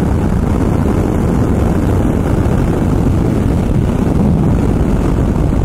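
Steady rush of wind and engine and road noise from a Ducati Multistrada motorcycle cruising at motorway speed.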